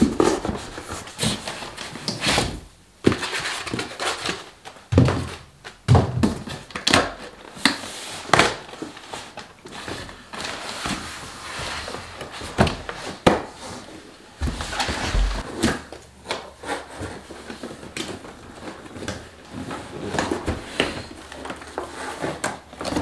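Cardboard packaging being handled and opened: an inner box slid out of a shipping carton, paper lining pulled back and a foam insert lifted out. Irregular scrapes, rustles and thunks.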